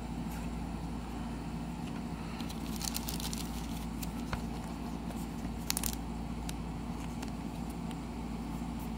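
Light rustles and clicks of trading cards and a thin plastic card sleeve being handled, clustered about three seconds in and again near six seconds, over a steady background hum.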